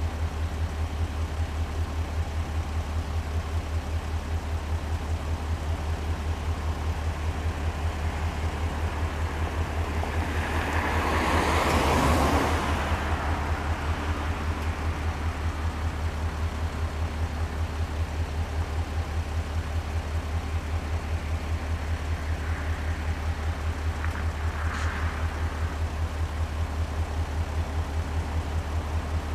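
Low, steadily pulsing rumble of an idling EMD SD40-2W diesel locomotive, whose 16-cylinder two-stroke engine beats evenly. Around the middle a broad rush of noise swells and fades.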